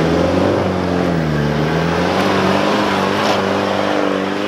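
Holden Colorado 4WD ute's engine revving unevenly under load as it climbs a rutted dirt track, its pitch rising and falling several times.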